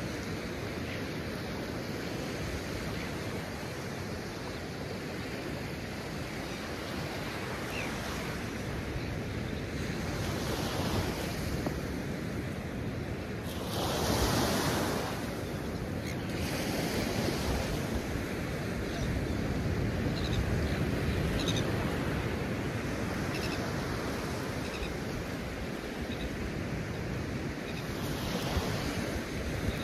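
Ocean surf washing onto a beach, a steady rush with one louder wave breaking about halfway through, with wind on the microphone.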